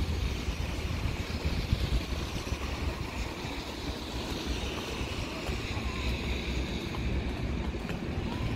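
Steady outdoor background noise: wind buffeting the microphone, with an unsteady low rumble and a hiss.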